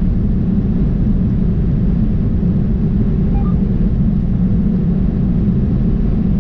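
Steady low drone of a semi-truck cruising at highway speed, heard inside the cab: engine and road noise with an even level throughout.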